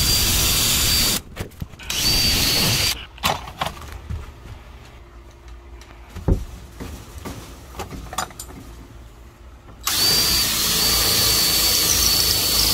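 DeWalt cordless drill with a 3/16-inch bit drilling pilot holes through a security screen door's frame, with a steady high whine. There are two short runs in the first three seconds, then quieter handling with a single knock, then a long steady run from about ten seconds in.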